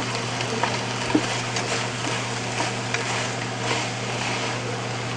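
Stir-fried squid and udon noodles sizzling in a frying pan as they are tossed with chopsticks and a spoon, with a few light clicks of the utensils against the pan. A steady low hum runs underneath.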